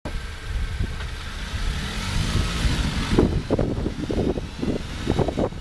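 Dodge Caliber pulling away, with engine and road noise and a rising note as it speeds up. From about three seconds in, wind buffets the microphone in uneven low gusts.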